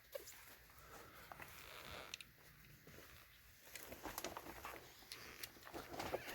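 Faint rustling with scattered light clicks, as of a person shifting and crawling about in a crawl space. The clicks grow more frequent in the last two seconds.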